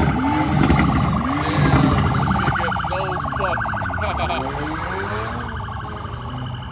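Police car sirens sounding in a fast, rising-and-falling warble as patrol cars arrive at a gathering of cars.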